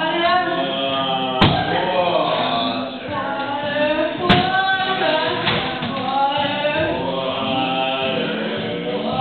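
Singing voices with music. Two sharp knocks cut through, one about a second and a half in and one about four seconds in.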